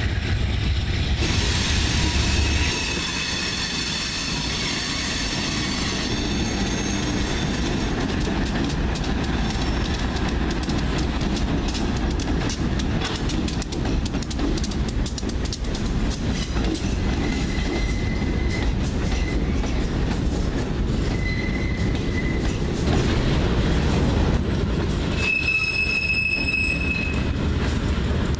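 Diesel freight locomotives and freight cars rolling past with a steady low rumble. The wheels squeal in high-pitched tones near the start and again near the end, with fainter squeals midway, over a fast run of rail clicks.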